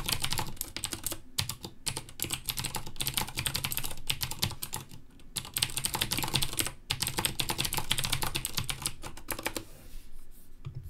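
Typing on a Filco MINILA 60% mechanical keyboard with clicky Cherry MX Blue switches: a dense, fast stream of key clicks with a few brief pauses, stopping about a second before the end.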